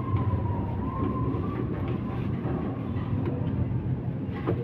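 Street traffic: a steady low engine rumble, with a faint wavering whine that fades out about a second and a half in, and a brief knock near the end.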